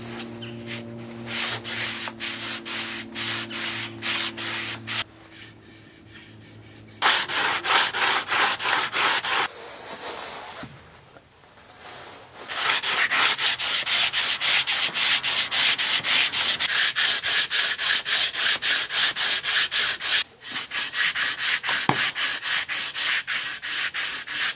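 Hand-sanding along a bamboo bow limb: quick back-and-forth strokes, about four a second, in several runs with short pauses between them.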